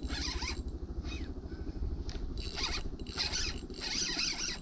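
Spinning reel cranked in several short bursts, a rasping whir with each stretch of turns, as a hooked striped bass is reeled in. A steady low rumble of wind on the microphone runs under it.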